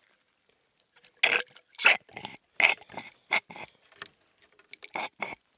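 Irregular clicks, knocks and short clatters of hard objects being handled, about nine in all, starting about a second in and spread over the next four seconds.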